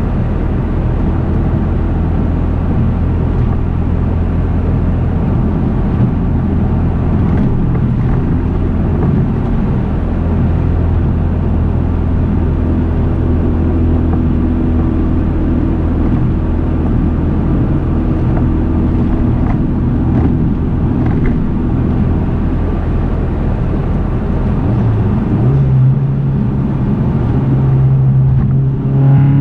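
Engine and road noise heard inside a tuned Chevrolet Cobalt SS, its LNF 2.0-litre turbocharged four-cylinder running steadily at highway cruise. About 25 seconds in, the engine note steps up to a higher pitch and gets louder.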